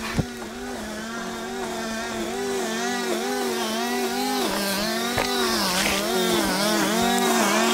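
Gas-powered string trimmer running, its engine pitch dipping and recovering about twice a second, growing steadily louder.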